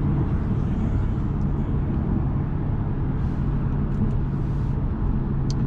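2012 Audi S4's supercharged V6, fitted with an AWE Touring exhaust, running steadily at a constant cruise with a low even drone, mixed with road noise.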